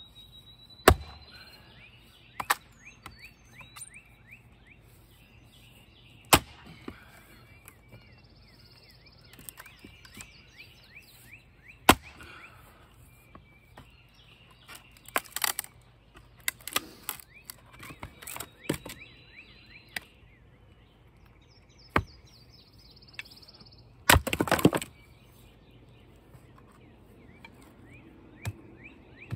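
Axe blows into knotty, crotchy red maple rounds: single sharp chops every few seconds, with a longer run of cracking about twenty-four seconds in as a round tears apart. Birds chirp and trill faintly in the background.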